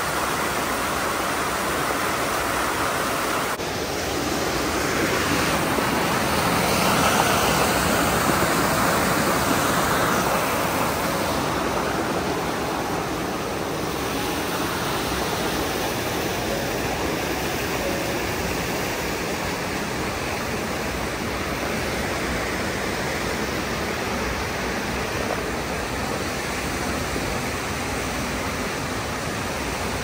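Steady rush of flowing water, louder for a few seconds about a third of the way in.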